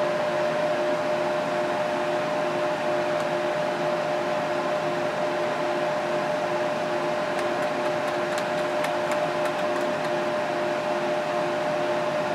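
A water-cooled PC running: its radiator fans (two San Ace 3000 rpm fans) and D5 pump make a steady whir with a constant hum and a second, pulsing tone over it. A few faint ticks come in about two-thirds of the way through.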